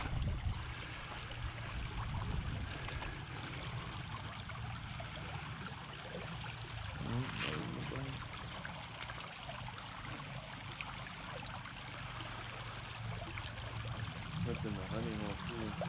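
Shallow mountain creek running over a gravel riffle: a steady babble and rush of water.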